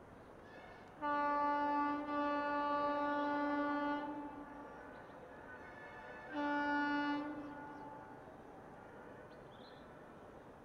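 Indian Railways locomotive horn: one long steady blast of about three seconds, then a short blast about two seconds later.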